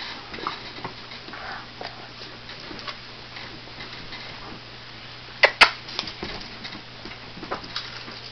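Doberman puppies play-fighting on a fabric couch: scattered soft scuffles and light ticks over a faint steady hum, with two sharp clicks close together about five and a half seconds in.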